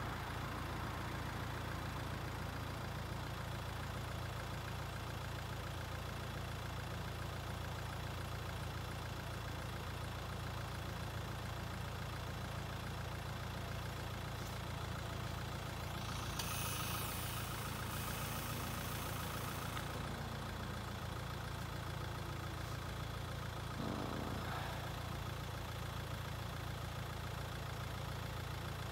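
Steady low rumble of a road vehicle's engine idling, with a brief rushing hiss for a few seconds about halfway through.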